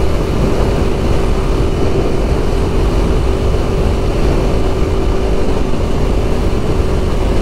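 Heavy wind buffeting on the microphone of a moving motorcycle, over the Aprilia Tuono Factory's V4 engine holding a steady note through its Akrapovic exhaust.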